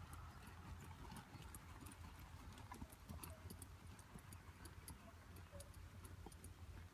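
Faint hoofbeats of a horse cantering on a muddy arena, heard as scattered soft clicks over a steady low rumble.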